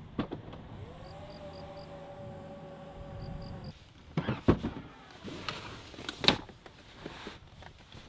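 Volvo V90 Cross Country's power tailgate opening: a click, then a steady motor whine for about three seconds, with quick high beeps as it starts and again as it stops. After that come a few sharp clunks, one much louder than the rest, as the rear seat backs are folded flat.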